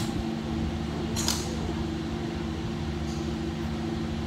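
Steady mechanical hum, with one brief sharp hissing strike about a second in.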